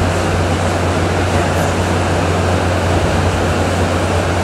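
Steady ventilation noise: a constant rush of air over a strong low hum, unchanging throughout.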